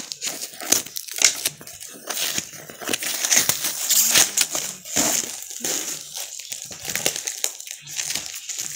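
Cardboard box being torn open by hand, with irregular crackling, ripping and crinkling of cardboard and paper packaging.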